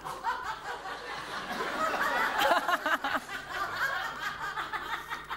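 Several people laughing and chuckling at once, a light, continuous laughter.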